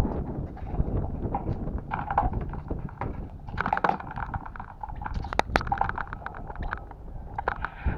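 Plastic motorcycle fairing being worked loose by hand: scattered clicks, knocks and rustling of panels and clips, over a low rumble of wind on the microphone.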